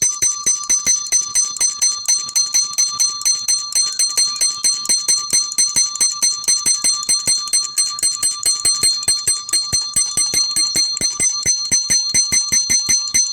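Antique mechanical alarm clock, dated to the early 1800s, ringing its alarm. The hammer strikes the bell in a fast, even rattle of roughly six strokes a second over a continuous bright ringing tone, without a break.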